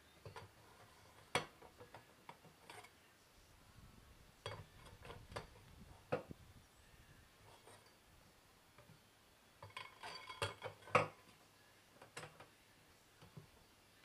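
Irregular metallic clinks and knocks in scattered clusters, some briefly ringing, from a steel bar being worked in the centre post of a manual tire changer over a motorcycle wheel.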